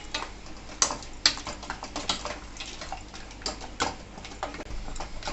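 A spoon clicking and knocking against a cooking pot in a run of light, irregular clicks, several a second, as ingredients are stirred in.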